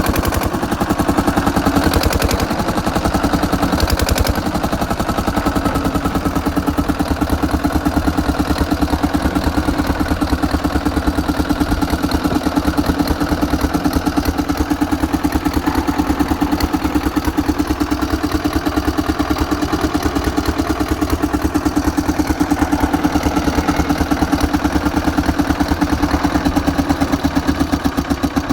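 Old diesel engine running steadily with a fast, even clatter of firing knocks. There is a couple of brief sharper knocks in the first few seconds.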